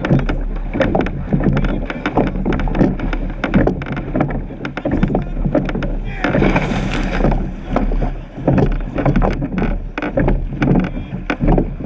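Surf boat being rowed: oars knock and clatter in their gates with the strokes, with water rushing along the hull. About six seconds in, a louder rush of water washes past for a second or so.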